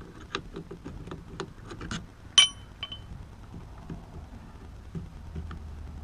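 Small clicks and taps of hands working the plastic steering-column trim and switch housing, with one sharp ringing metallic clink of a small metal part about two and a half seconds in and a fainter one just after.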